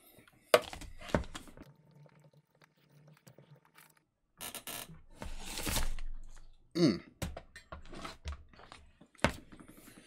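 Handling noise from a plastic UK wall socket and its cable being moved about: a few sharp knocks and clicks, with a stretch of rustling in the middle.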